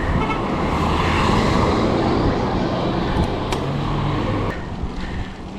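Steady rushing wind and road noise on a camera mounted on a moving road bike ridden in a group; it drops off suddenly about four and a half seconds in.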